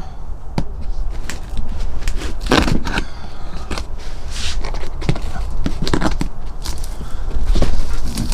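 Cardboard box and its packing material being opened and pulled apart by hand: irregular rustling, scraping and crinkling with many short knocks, over a steady low rumble.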